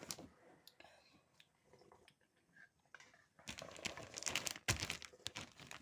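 Quiet for the first few seconds, then a run of quick crackling, crinkling clicks, as of thin plastic being handled and squeezed.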